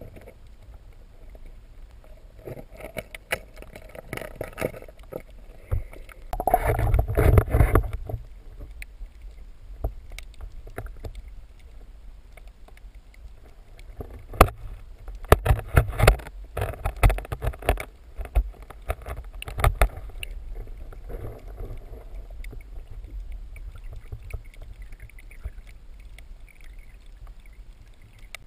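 Muffled underwater sound picked up by a submerged camera: a low water rush with scattered sharp knocks and clicks. There is a loud burst lasting about a second and a half, about seven seconds in, and a run of sharp knocks between about fourteen and twenty seconds in.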